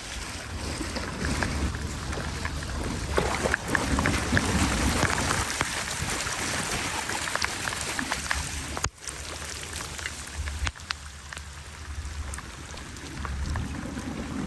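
Floodwater running and splashing into a storm drain, with scattered small splashes and wind rumbling on the microphone.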